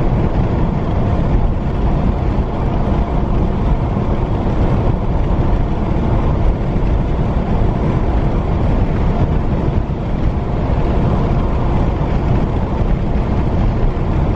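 Steady road and wind noise of a car driving at highway speed, mostly a low rumble.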